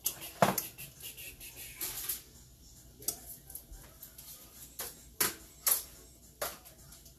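Kitchen clatter: a string of separate clicks and knocks from dishes and utensils being handled, the sharpest knock about half a second in.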